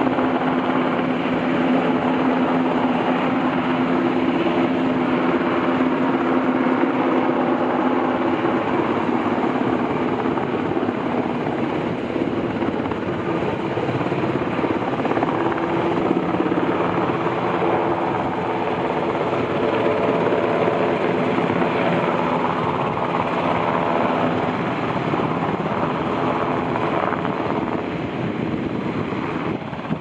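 U.S. Coast Guard MH-60 Jayhawk helicopter hovering close overhead, its rotor and twin turbine engines running loud and steady with a constant engine tone.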